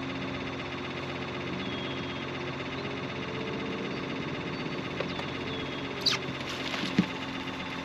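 A small motor on a fishing boat running with a steady, even hum. A couple of short, sharp knocks come about six and seven seconds in.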